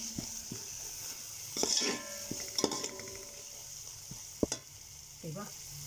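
Spice masala sizzling in hot oil in a steel pot while a slotted steel spoon stirs and scrapes through it, with a few sharp clinks of the spoon against the pot.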